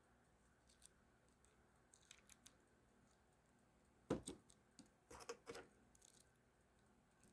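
Faint clicks and small scrapes of the parts of a ratcheting screwdriver being handled and fitted together by hand, with a louder cluster of clicks about four seconds in and more a second later.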